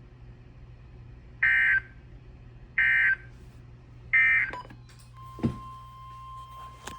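Three short, loud warbling data bursts of an Emergency Alert System SAME end-of-message code, about a second and a half apart, signalling the end of the weather warning broadcast. After them come a few clicks, and a faint steady tone starts about five seconds in.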